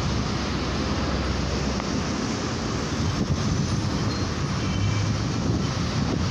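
Car traffic moving through a covered street: a steady rumble of engines and tyres, mixed with wind buffeting the microphone.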